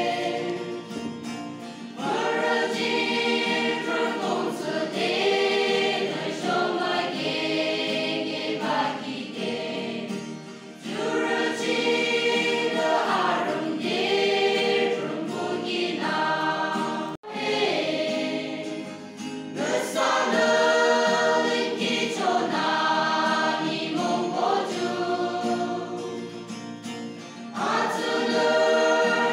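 Youth choir singing a hymn together, in phrases of a few seconds with short breaks between them. The sound drops out for an instant about halfway through.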